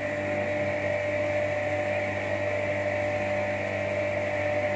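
Portable electric pressure pump running with a steady hum, forcing water through a blocked household water pipe to flush the blockage out.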